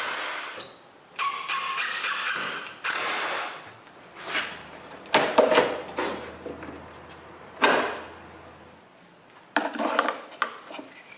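Workshop handling sounds of plywood and drawer-slide hardware: a string of separate knocks, clacks and scrapes, with a couple of short noisy stretches in the first few seconds.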